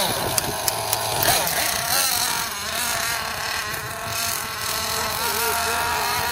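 Team Associated MGT 8.0 RC monster truck's nitro engine running with a buzzing whine that rises and falls as the throttle is worked. A few sharp knocks sound in the first second, as the truck bounces over rough dirt.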